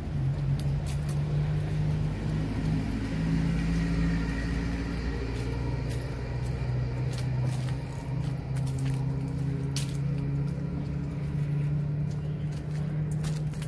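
Steady low hum of nearby road traffic, vehicle engines running with a pitch that drifts slowly up and down, with a few sharp clicks over it.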